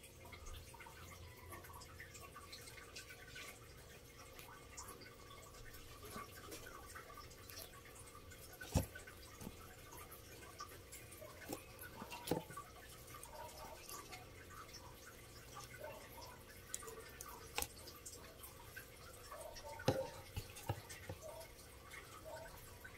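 Faint, irregular small clicks and crunches from a leopard gecko feeding on a worm held out on tweezers, with a few sharper clicks about nine, twelve, seventeen and twenty seconds in.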